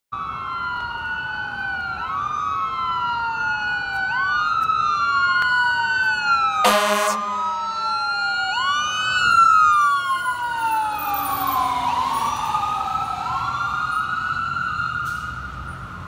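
Fire engine electronic sirens wailing, two tones sweeping up and down in overlapping cycles of about two seconds. A short air horn blast comes about seven seconds in, and the sirens fade near the end as the truck passes.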